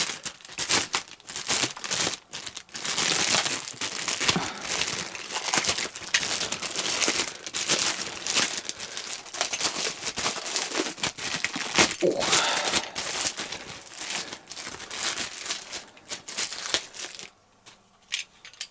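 Plastic wrapping crinkling and tearing as a power-tool battery is unwrapped by hand. The crackling stops about 17 seconds in, followed by a couple of light clicks.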